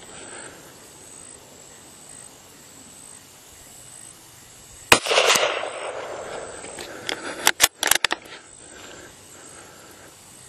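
A single shot from a Marlin 882 .22 Magnum bolt-action rifle about halfway through, trailing off for a second or so, then a quick run of sharp clicks a couple of seconds later as the bolt is worked. It is a follow-up shot into a downed boar, fired to make sure it is dead.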